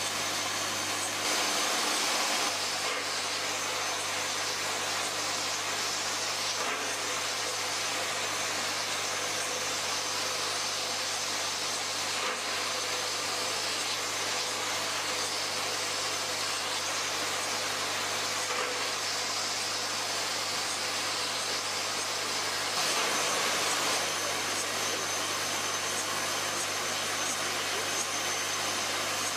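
Rotary bottle unscrambler running: a steady machine hum under a continuous noisy rattle of small plastic bottles tumbling in the bowl and sliding along the outfeed rails.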